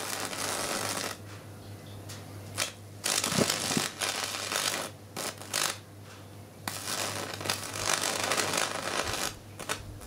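High-voltage arc from a microwave oven transformer, on an insulated stick held to an old capacitor, crackling and buzzing in several bursts of a second or more, with short gaps between them. A steady low hum runs underneath.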